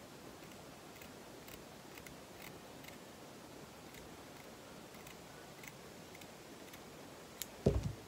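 Small scissors snipping close along the edge of fake fur, faint crisp snips about twice a second. Near the end there is a single louder dull thump.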